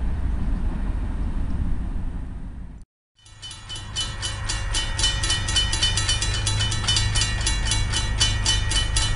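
Low outdoor rumble that fades out about three seconds in. Then a railroad crossing bell rings in rapid, even strokes, about four or five a second, over the steady low rumble of a passing train.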